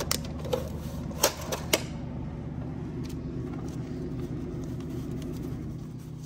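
A few sharp clicks and snaps in the first two seconds as a stack of dollar bills is taken out of a snack vending machine's bill acceptor, over a steady low machine hum.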